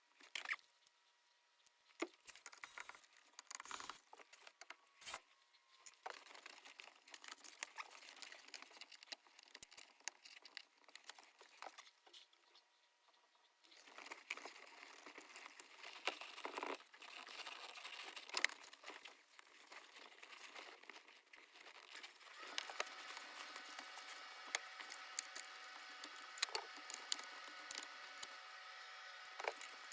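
Faint rustling and crinkling of car-seat upholstery being worked loose by hand, with scattered light clicks and taps of plastic trim and tools. About three-quarters of the way through, a faint steady hum with several tones comes in underneath.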